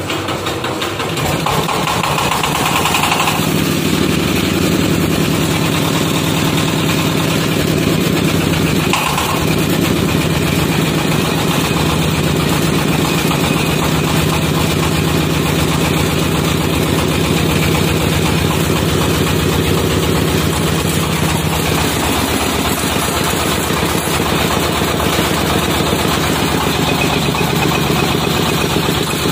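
Single-cylinder direct-injection diesel engine of about 24–27 hp running steadily, driving a wood pellet mill. It comes up in loudness over the first couple of seconds, with a single brief knock about nine seconds in.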